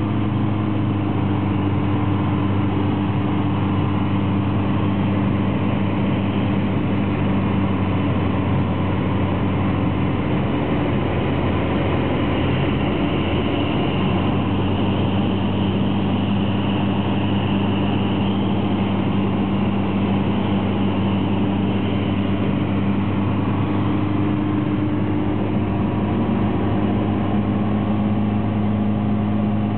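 Steady drone of the EV-97 microlight's Rotax flat-four engine and propeller in flight, heard from inside the cabin with a rush of airflow. Its tone wavers for several seconds partway through, then settles back to a steady drone.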